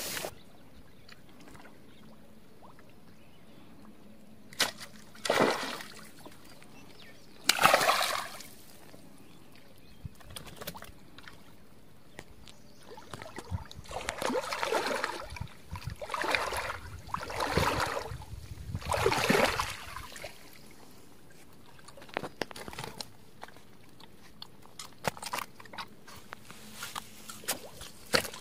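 Shallow water splashing and sloshing in short bursts: two separate splashes in the first eight seconds, then four or five in quick succession around the middle.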